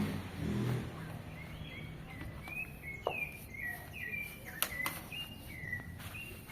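A bird singing a run of short whistled notes that slide up and down, with a couple of sharp clicks in between.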